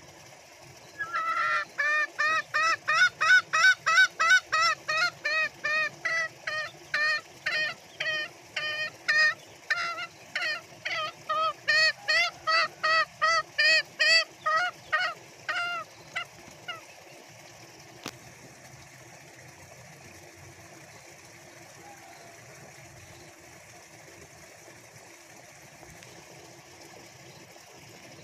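Male green junglefowl cackling its 'ngekek' call: a long run of rapid, evenly repeated calls, about two a second, for some fifteen seconds, then it stops. It is a call to other green junglefowl, which usually answer it.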